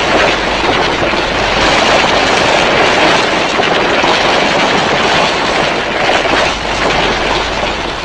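Designed monster sound effect for Hedorah: a long, harsh, rushing noise with no clear pitch, held steady for several seconds.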